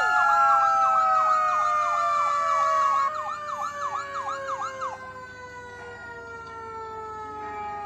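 Several emergency-vehicle sirens sounding together. An electronic siren yelps rapidly, about three or four sweeps a second, and cuts off about three seconds in, with fainter yelping running on to about five seconds. Under it, a long wail falls slowly in pitch throughout.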